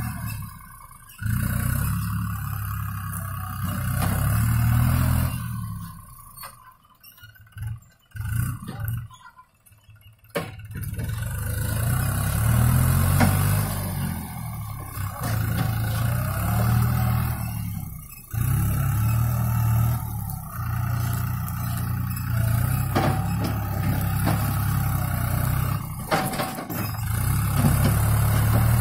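New Holland TT4.55 tractor's diesel engine running under load while it pushes a log with its front blade, the engine note shifting up and down. The sound cuts out briefly several times, longest from about six to ten seconds in.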